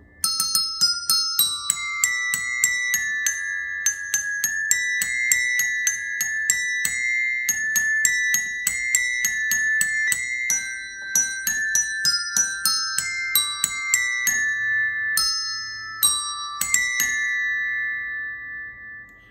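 A row of eight colour-coded desk bells, one of them a chromatic G-sharp bell, played by tapping their plungers to pick out a hymn melody note by note. Each tap gives a short click and a bright ringing note, about two or three notes a second, with overlapping rings.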